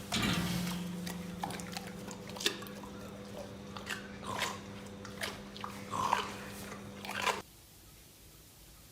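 Chewing and crunching with irregular clicks over a steady low hum; it all cuts off suddenly about seven seconds in.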